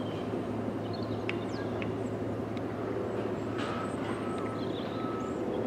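Airbus A340-600 taxiing, its four Rolls-Royce Trent 500 jet engines at idle giving a steady low hum, with small birds chirping. From about three and a half seconds in, a short beep repeats about twice a second.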